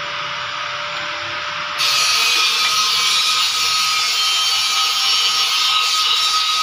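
Steady machine noise with a thin high whine, like a power tool running, and no distinct clicks or knocks. It turns brighter and hissier about two seconds in.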